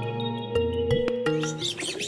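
Documentary background music with a slow melody over sustained low notes; birds begin chirping near the end.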